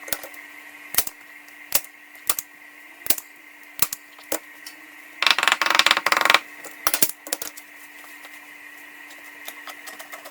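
Heavy-duty staple gun firing staples into the ottoman's frame, one sharp snap about every second. About halfway through there is a dense second or so of rapid clicking and rustling, then a few more snaps.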